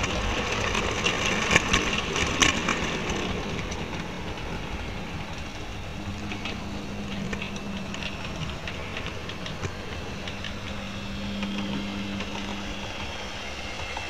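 Model train running along its track with a small camera riding on it: a steady rattle with sharp clicks, most frequent in the first few seconds, and a low hum that comes in about halfway through and again near the end.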